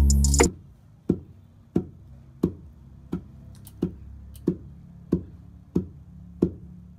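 Background music cuts off about half a second in. Then a long wooden pestle pounds dry corn in a wooden mortar, one thud about every two-thirds of a second, nine strokes in all.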